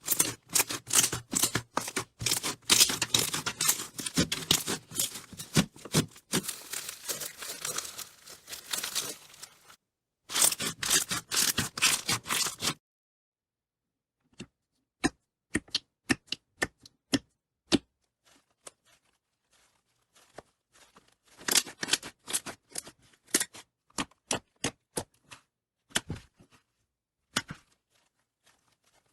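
Slime being squeezed and poked, making rapid crackling and clicking pops. The clicks come thick and fast for about the first twelve seconds with a short break near ten seconds, then stop briefly, then return as sparser single clicks with another dense run a little past the middle.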